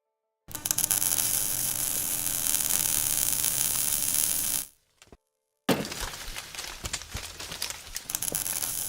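CNC pantograph cutting torch cutting metal plate: a loud, steady hiss with crackling. It stops abruptly near the middle, then resumes after about a second, more crackly.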